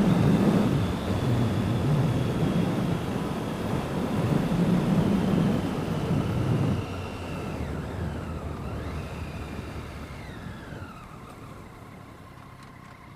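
Wind rush and engine noise of a moving motorcycle. The noise drops sharply about seven seconds in and keeps fading as the bike slows.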